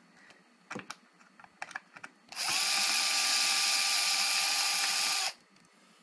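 Cordless electric screwdriver running steadily for about three seconds, backing a screw out of the garage door opener's back cover, then stopping sharply. A few light clicks and knocks of handling come before it.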